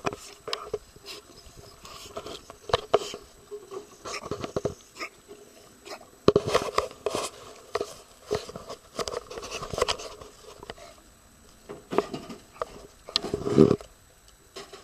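English bulldog snuffling and breathing noisily close up, in short irregular bursts with a few sharp clicks between them. The loudest burst comes near the end.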